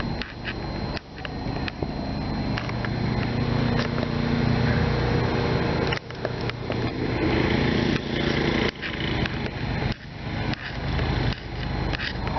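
A motor engine running, louder and steadier in the middle seconds, with many short clicks and knocks over it.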